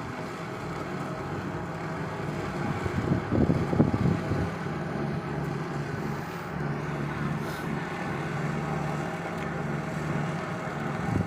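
Fast boat's engine running steadily over a rushing noise of wind and water, with a few low thumps about three to four seconds in.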